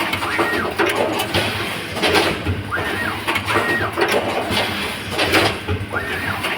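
Automatic lug-crimping and wire-harness processing machine running through its cycle: pairs of motor whines that rise and fall in pitch repeat about every three to four seconds, over a steady clatter of short mechanical knocks.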